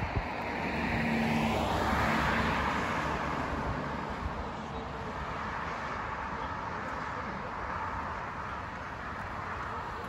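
A car passes on the road, its tyre and engine noise swelling to a peak about two seconds in and then fading into steady road hiss.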